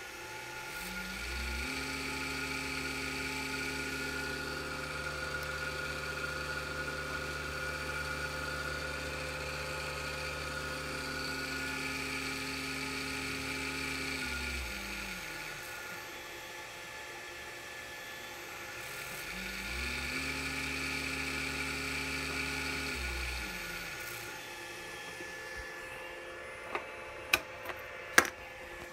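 Servo motor driven by a Siemens Simodrive dual-axis servo drive, run as a test of the drive: it ramps up to speed with a rising whine, runs steady for about thirteen seconds and winds down, then makes a second, shorter run of about four seconds. A few sharp clicks come near the end.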